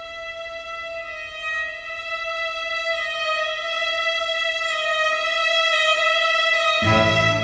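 String orchestra playing a slow passage: violins hold one long high note that swells steadily louder, and the lower strings come in strongly near the end.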